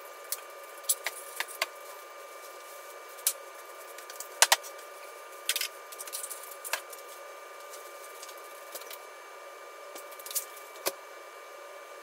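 Irregular clicks, taps and knocks from handling things while cleaning out dog kennels, the loudest a double knock about four and a half seconds in, over a faint steady hum.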